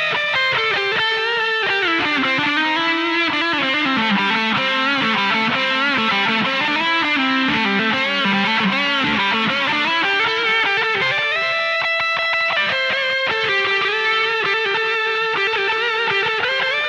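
Stratocaster electric guitar played through a Boss DS-2 Turbo Distortion pedal: a melodic line of distorted, sustaining notes, with one longer held note about twelve seconds in.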